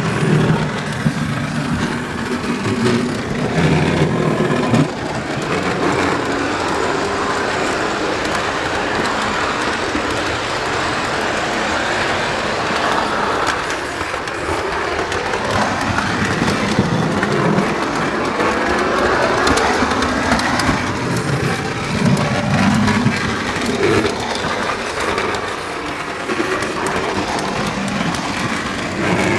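O gauge model train running on three-rail track, heard from a camera riding on the train: a steady, close rumble and rattle of wheels and motor.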